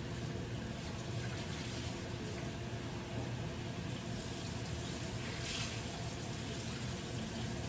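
Steady hiss of a tap running at a kitchen sink, over ground beef frying in a skillet.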